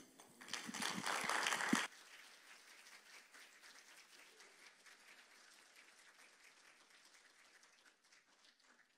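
Congregation applauding in welcome, fairly loud for about the first two seconds, then dropping abruptly to a faint patter that continues.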